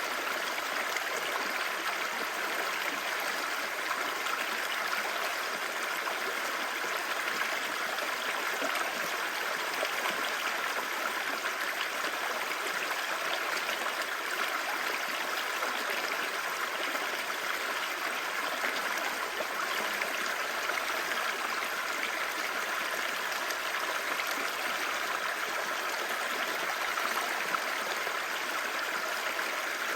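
Clear stream babbling: a steady, even rush of flowing water with no breaks.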